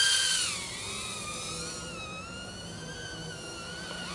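Tiny 1S brushless micro quadcopter with 0703 motors and 40 mm propellers in flight: a high-pitched motor and propeller whine that wavers up and down with throttle. It is loudest at the start, then drops in pitch and level about half a second in.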